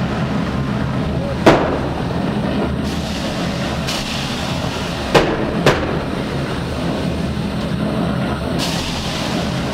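Staged pyrotechnic cannon fire: three sharp bangs, one about a second and a half in and two in quick succession about five seconds in, over a steady background rumble.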